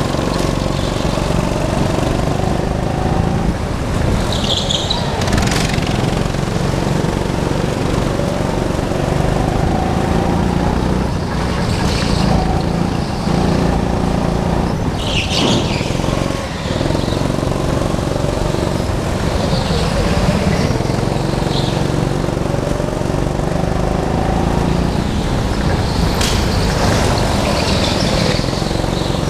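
A go-kart's engine running hard on track, its note rising and falling with the throttle through the corners. Several short high squeals come in along the way, typical of kart tyres sliding on smooth concrete.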